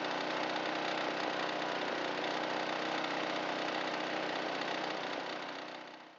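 Walk-behind string trimmer's small engine running steadily, fading out near the end.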